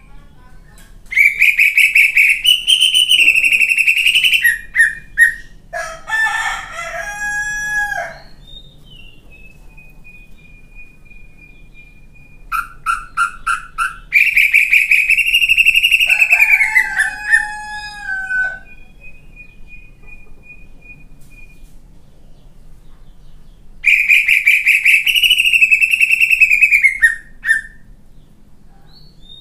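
Caged greater green leafbird (cucak ijo) in loud song. Three harsh, drawn-out, crow-like phrases of about three seconds each come near the start, midway and near the end. Between them are shorter falling whistled notes, a thin held whistle and a quick run of clipped notes: the coarse 'isian kasar' fill phrases.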